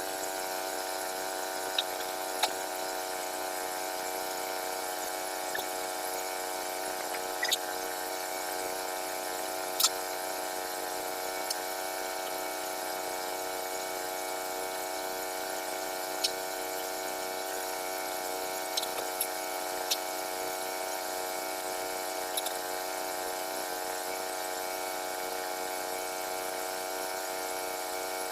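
Small gasoline engine of an HM122 portable bandsaw sawmill running at a steady speed, with a few sharp ticks scattered through it.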